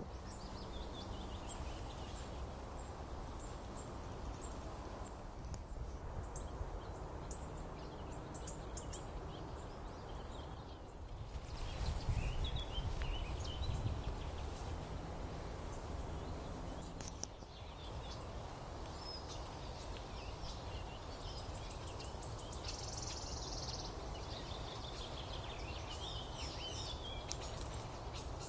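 Birds chirping and calling, with short calls scattered throughout and a longer, denser stretch of song about two-thirds of the way in, over a steady low background rumble.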